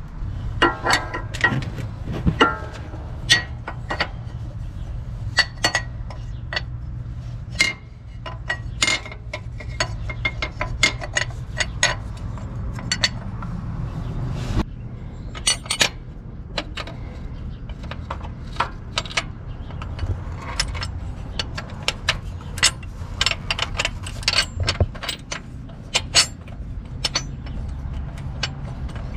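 Hand tools and metal parts clinking and clicking irregularly as a bracket and its bolts are fitted on an engine, over a steady low hum.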